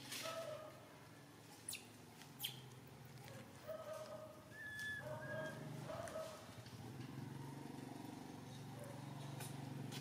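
A string of short, high squeaky animal calls, several in a row, over a steady low hum, with two sharp clicks early on.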